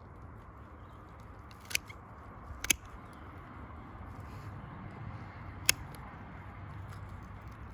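Spring-loaded shears snipping through a Chinook salmon's gill arches to cut out a set of gills: three sharp clicks, two about a second apart and a third some three seconds later.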